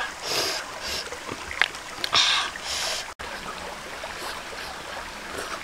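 A stream running steadily in the background. During the first three seconds there are several short clicks and hissing rustles as boiled mussel shells are handled in their broth and eaten.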